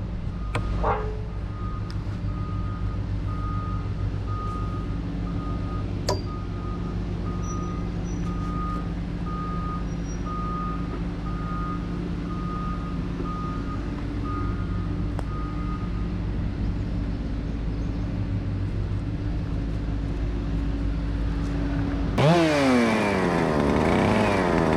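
Cat excavator's diesel engine running steadily, its travel alarm beeping about once a second while the machine moves. Near the end a chainsaw starts and revs up and down, louder than the excavator.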